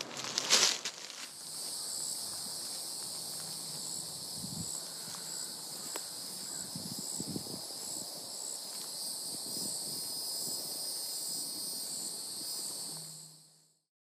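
Footsteps crunching on dry leaf litter for about a second, then a steady, high, shrill insect chorus with a faint regular pulsing, over light rustling; it fades out near the end.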